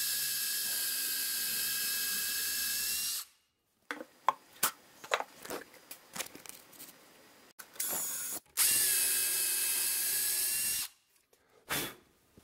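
Cordless drill driving 2.5-inch screws into maple boards: two steady runs of the motor's whine, about three seconds near the start and about two seconds after the middle, with clicks and knocks of screws and wood being handled between them.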